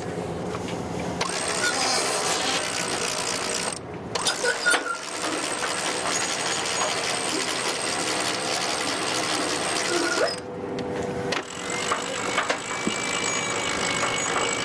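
Sailboat cockpit winch being cranked to haul in the mainsail outhaul, its pawls ratcheting, with two brief pauses, about four seconds in and again around ten and a half seconds in.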